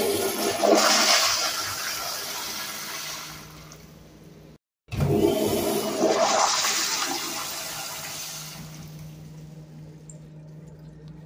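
American Standard Madera flushometer toilet flushing twice: each flush starts with a sudden loud rush of water that tapers off over about four seconds. The first cuts off abruptly about halfway through, just before the second begins. This is a blowout flush.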